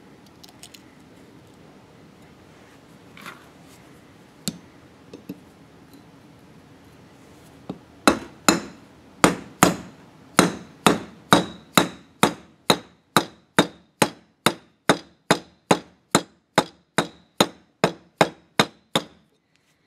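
Hammer tapping a large socket used as a driver to seat a new grease seal into a forklift wheel hub. After a few faint handling clicks, a steady run of more than twenty taps, a little over two a second, each with a short metallic ring, starts about eight seconds in and stops just before the end.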